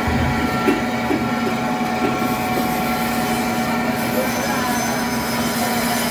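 Electric band saw running steadily, a constant machine hum with several fixed pitches.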